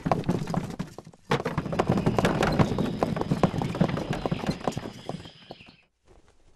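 Horse hooves clip-clopping in a fast, dense run, as of a horse pulling a carriage. The hoofbeats break off about a second in, come back louder with a faint steady high tone beneath them, and fade out near the end.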